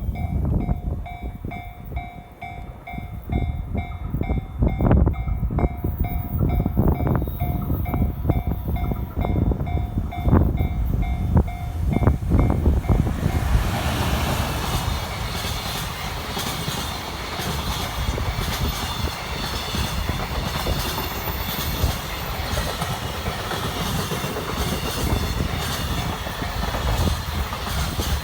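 Japanese level-crossing warning bell ringing in a steady pulsing beat while a JR Tokaido Line train passes, its wheels knocking over the rail joints. About halfway through, the louder, steady rush of the passing train covers the bell.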